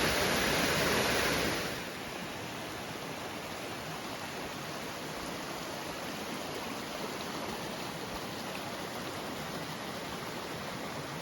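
Steady rush of water falling and flowing at a mountain waterfall. The level drops a step about two seconds in, then the rush goes on evenly and a little quieter.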